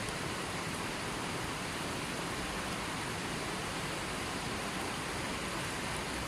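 Steady rushing of river water, an even hiss with no breaks or single splashes.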